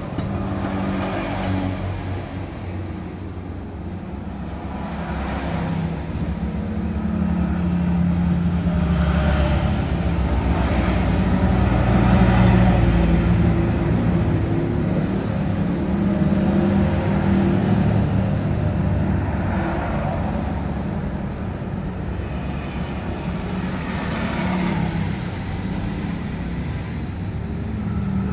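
Passing road traffic: a continuous rumble of vehicle engines that swells and fades as vehicles go by, loudest about twelve seconds in.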